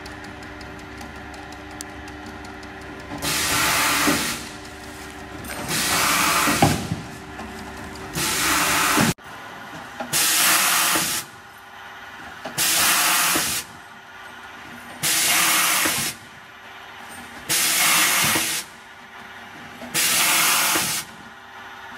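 LONGSN LSN-RC6 automatic bottle-neck trimming machine cycling on plastic bottles. From about three seconds in, a hiss about a second long repeats about every two and a half seconds, one for each bottle neck trimmed, over a steady machine hum.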